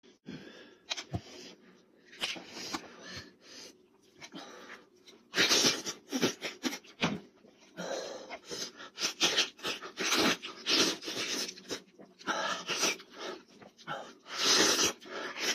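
Close eating sounds: wet chewing, smacking and slurping as meat is torn off a cooked goat head and eaten by hand, in irregular bursts that grow busier after the first few seconds.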